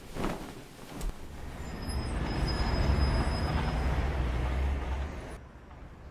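City street traffic: a heavy vehicle passing, a low rumble with a thin high squeal, swelling from about a second in and cutting off abruptly near the end.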